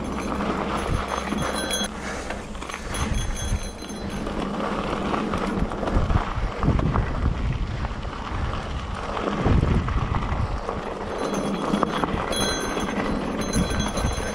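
A 2020 Trek Fuel EX 5 full-suspension mountain bike ridden over a dirt trail: an uneven rush of tyre noise and rattling over bumps, with louder surges about six and ten seconds in.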